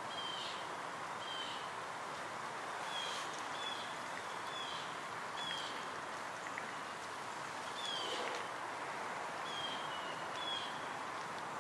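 A bird giving about ten short, high chirps, each falling in pitch, at irregular intervals over a steady outdoor hiss.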